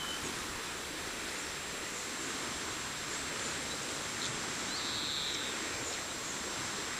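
Steady outdoor hiss of open-air ambience, with one short high chirp from a bird about five seconds in.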